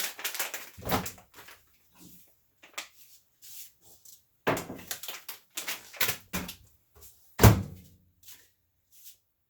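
A series of knocks and thuds from things being handled in a kitchen. The loudest thud comes about seven and a half seconds in.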